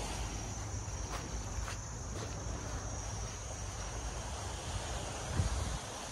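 Shoreline ambience: a steady high insect buzz over wind rumbling on the microphone and a wash of surf, with a stronger gust about five seconds in.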